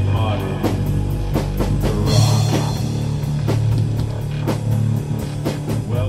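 Rock intro music with a driving drum beat, electric guitar and bass.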